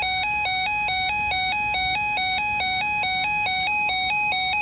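Electronic emergency-alert attention tone: a steady square-wave warble switching rapidly back and forth between two pitches, signalling that an alert message is about to be read.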